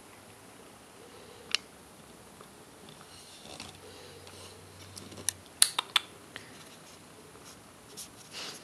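Cat chewing cat grass: scattered short, sharp crunching clicks, with a quick cluster of the loudest ones about five to six seconds in.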